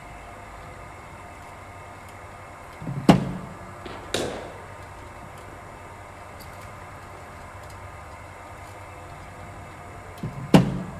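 Cricket balls fired from a bowling machine and struck by the bat. A sharp crack comes about three seconds in, with a second knock a second later, and another sharp crack comes near the end, over a steady machine hum.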